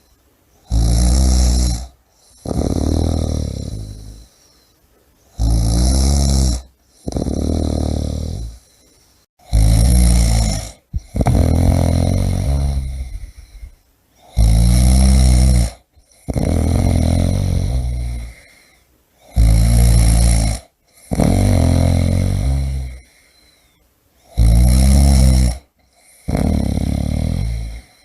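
A person snoring in a slow, regular rhythm: six breath cycles, each a short loud snore followed by a longer one that fades out, with a brief quiet pause before the next.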